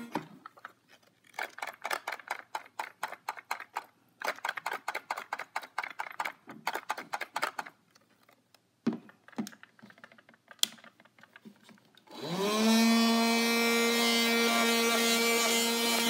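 A handheld vacuum cleaner's motor stops at the start. Two runs of quick rubbing and scraping strokes follow, then a few scattered knocks. About twelve seconds in the motor switches back on, rises briefly in pitch and settles into a steady hum.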